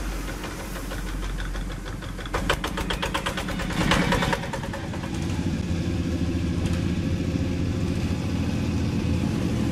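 Single-cylinder diesel engines of two-wheel hand tractors running. About two seconds in, a sharp, rapid knocking at about ten beats a second lasts for about two seconds. Then one engine runs on steadily as a hand tractor tows a trailer.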